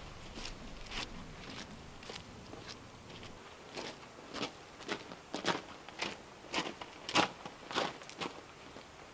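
Footsteps of a person walking at a steady pace, about two steps a second; the later steps crunch on gravel and grow louder as they approach, then stop about eight seconds in.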